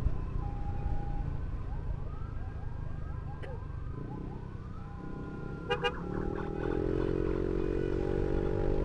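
Ambulance siren sweeping up and down over the rumble of a motorcycle engine and wind. Two short honks come about six seconds in, then the motorcycle engine rises in pitch as it accelerates.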